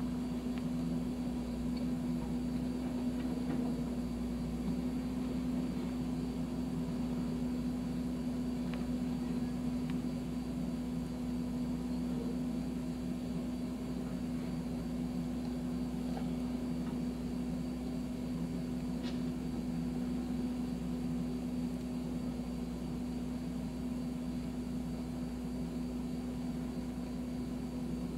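John Deere backhoe's diesel engine running steadily at an even pitch, with no revving.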